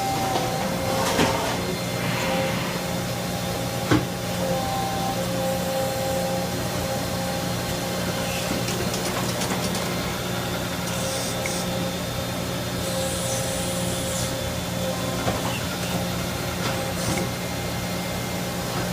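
A 1999 Niigata SPN50 CNC horizontal machining center running under power: a steady hum with whining tones that start and stop as it works, and one sharp clack about four seconds in.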